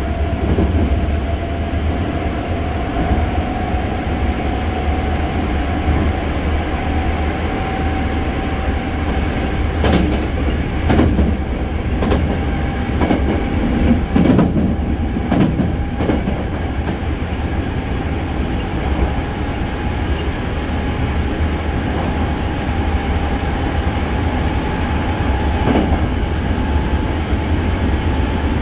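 Hankyu 6300 series train heard from inside a car while running at speed: a steady rumble of wheels on rail, with a thin whine that rises slowly in pitch. A run of sharp wheel clacks over rail joints comes about a third of the way in, and there is one more near the end.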